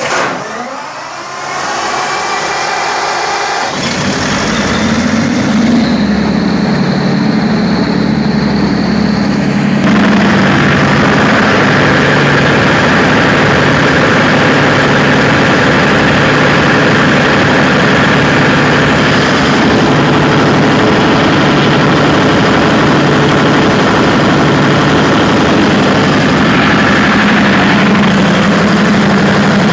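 Freshly overhauled Perkins 4012 diesel engine being started: a rising whirr for the first few seconds, then the engine fires about four seconds in, picks up speed, and settles into steady, loud running.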